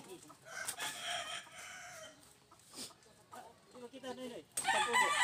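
Rooster crowing: a fainter long crow in the first two seconds, then a louder one beginning near the end.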